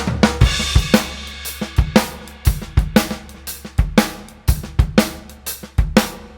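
Acoustic drum kit played in a shuffle groove with Swiss flam triplet fills sweeping from cymbal down to the snare, kick drum thumps underneath and cymbal crashes.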